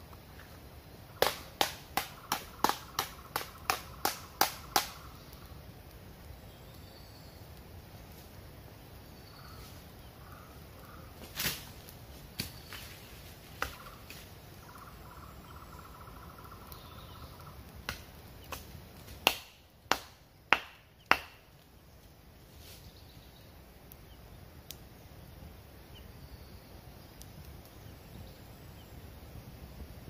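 Hard knocks of a tree trunk being struck: a quick run of about ten knocks, roughly three a second, then a few single knocks and a second group of about six near two-thirds through. The tree is beaten to warn off a leopard and keep it from coming closer.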